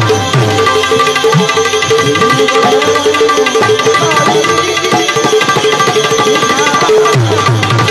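Live Gujarati devotional bhajan music: a harmonium holds steady chords over hand drums beating out a quick rhythm. The drumming thins out in the middle and comes back strongly near the end.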